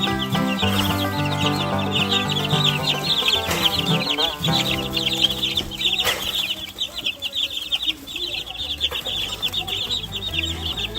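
A brood of two-week-old Barred Rock chicks peeping rapidly and continuously in excitement as they scramble for cooked egg, over background music that drops away about six seconds in.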